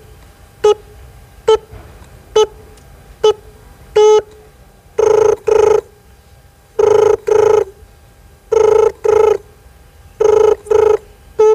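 Mouth mimicry of an old landline telephone: a string of short beeps a little under a second apart, then the phone's double ring, ring-ring, four times over. A quick run of short beeps comes at the very end.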